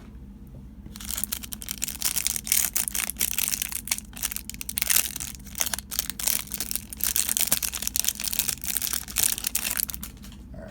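Trading-card pack wrapper being torn open and crinkled by hand, a dense crackly rustling with many sharp crackles that starts about a second in and stops shortly before the end.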